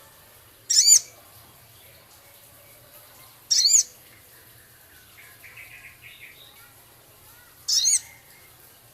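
Small songbird giving three short, loud, high-pitched trilled calls about three seconds apart, with faint soft chattering between them.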